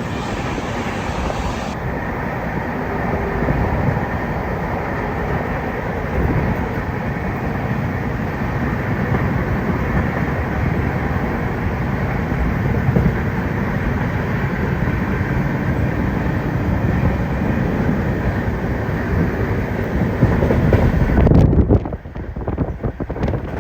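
Steady, loud rumble and rattle of a moving vehicle, of the kind heard riding a train, with wind on the microphone. Near the end it changes abruptly to a rougher, gusty buffeting.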